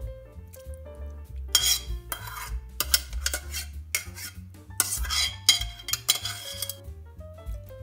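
Metal spoon scraping and clinking against a frying pan as cooked vegetables are scooped out, in several short strokes a second or so apart.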